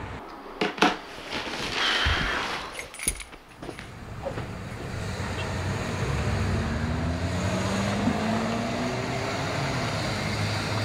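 A few knocks and a short rustle, then an SUV's engine rumbling steadily as it drives up, its note slowly rising.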